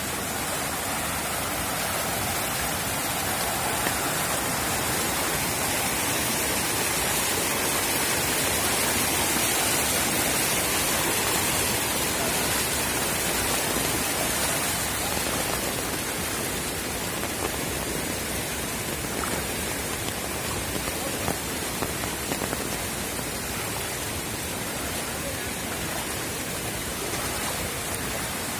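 Steady rushing water noise, an even wash with no pauses.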